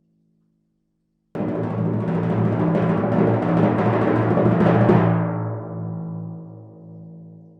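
Timpani roll: starts suddenly a little over a second in, swells slightly, then stops about five seconds in, leaving the drum ringing and fading out.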